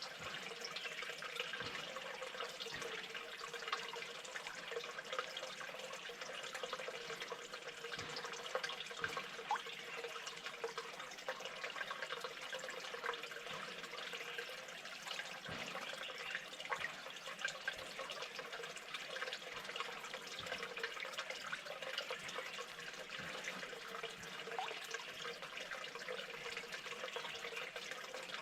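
Steady trickle of running water, with scattered small clicks and taps over it.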